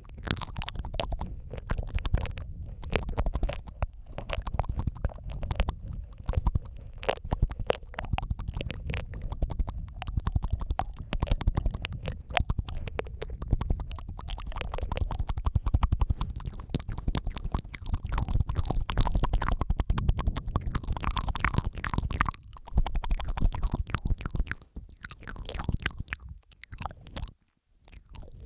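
Layered ASMR mouth sounds recorded close to the microphone: a dense, continuous stream of wet clicks, smacks and licking noises over a low rumble, thinning out into brief pauses near the end.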